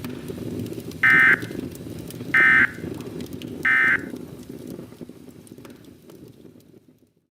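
Three short bursts of EAS digital data tones, the SAME end-of-message signal, each a fraction of a second long and about a second and a quarter apart. Under them runs a low, crackling rumble that fades away to silence near the end.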